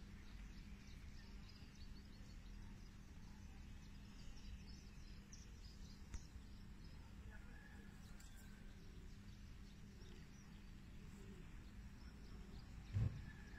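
Faint outdoor background: a steady low rumble with small birds chirping faintly now and then, and one short low bump about a second before the end.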